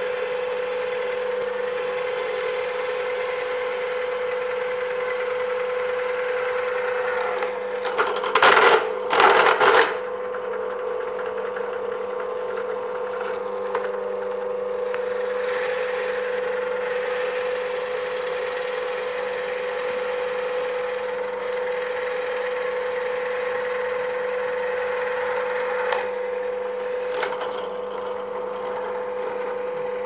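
Bench drill press motor running steadily with a constant hum while a plug cutter bores into a wooden decking board, cutting wooden plugs. Two short, loud bursts of cutting noise come about a third of the way in, and a few lighter ones near the end.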